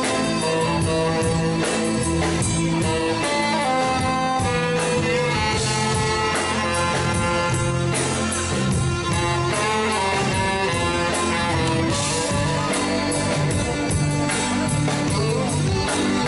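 Live band playing an instrumental passage of 1970s music, with a steady beat.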